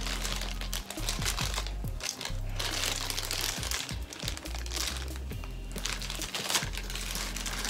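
A clear plastic packaging bag crinkling and rustling as it is handled, over background music.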